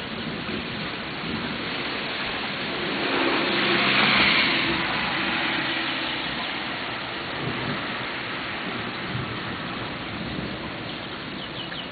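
Steady rain falling during a thunderstorm. About four seconds in a louder rushing swell builds and fades. A few faint chirps come near the end.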